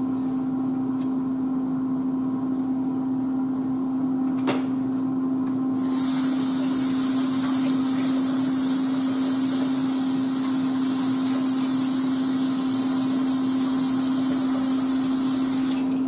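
Kitchen sink tap running from about six seconds in until just before the end, a steady rush of water as raw-meat-covered hands are washed. A single sharp click comes about four and a half seconds in, and a steady low hum runs underneath throughout.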